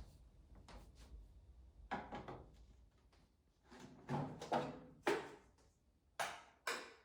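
A few light knocks and clatters of household things being handled and set down, the loudest a cluster about four to five seconds in and two sharp knocks near the end.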